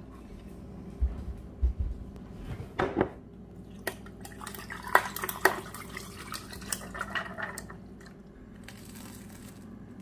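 Liquid running into a cup while crockery is handled: heavy thumps about a second in, then sharp clinks midway.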